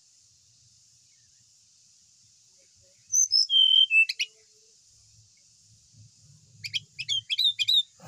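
Brown-chested jungle flycatcher singing: about three seconds in, a phrase of high notes sliding down into a held whistle that steps lower, then near the end a quick run of about five short sweeping notes.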